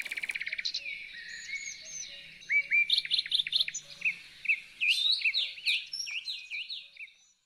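Birds chirping: many quick, repeated chirps and calls, with a fast rattling trill at the start, fading out near the end.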